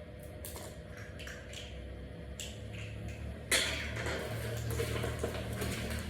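Packaging and parts being handled: scattered light clicks and taps, then from about halfway a sudden, louder, continuous rustling.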